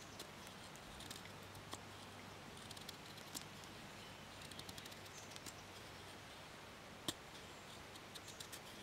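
Faint scraping and small clicks of a knife blade shaving thin curls from a peeled green stick, carving out the recess of a branch whistle; one sharper click about seven seconds in.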